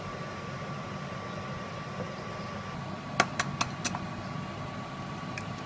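An eggshell being tapped open, four quick sharp cracks against a steady hum with a thin whine from the kitchen.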